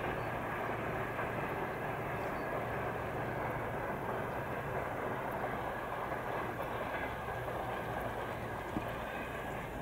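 Freight train of tank wagons and covered hopper wagons rolling along the track: a steady, even noise of wheels on rail.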